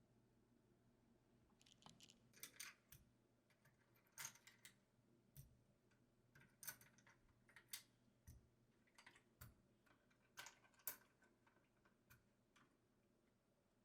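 Faint, irregular clicks and taps of mechanical keyboard parts being handled and pressed together, starting about two seconds in, roughly two a second.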